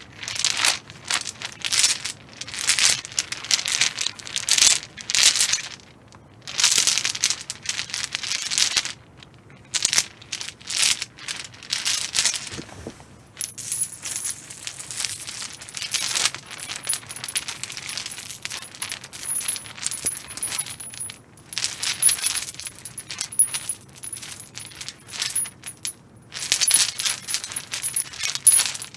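Rattly metal chain being handled, its links clinking and jangling in repeated spells of a few seconds with short pauses between, over open outdoor air.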